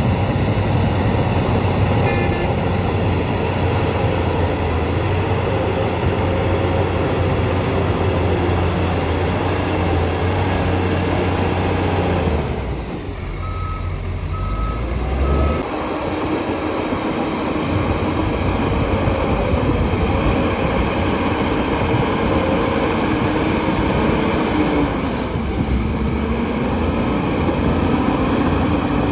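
Diesel engines of heavy earthmoving machinery running steadily under load. Midway the engine drone eases briefly, and three short beeps of a reversing alarm sound.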